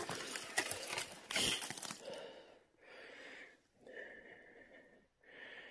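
A man breathing heavily close to the microphone: three long breaths in the second half, after about two seconds of rustling with sharp clicks.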